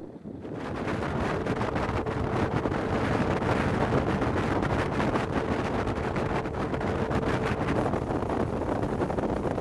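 Aluminum motorboat running at speed on a river, its motor and the rush of wind on the microphone making a steady roar. The roar comes in about half a second in, with a faint steady hum running through the middle seconds.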